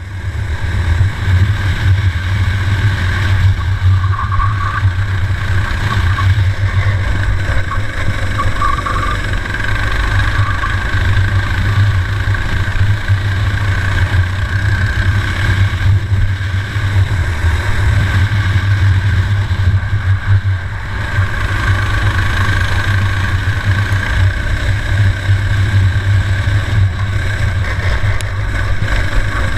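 Racing kart engine running at speed on track, heard from a camera mounted on the kart, with a steady low rumble throughout.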